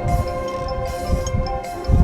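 High school marching band playing: held wind chords with mallet percussion notes ringing above them and low drum hits, the band getting louder right at the end.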